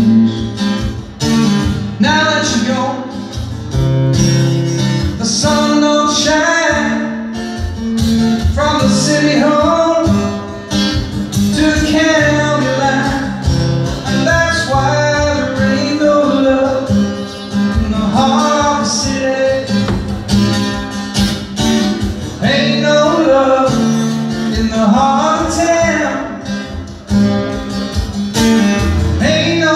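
Live solo performance on an amplified electro-acoustic guitar, played continuously through a PA, with a male voice singing a melody at times.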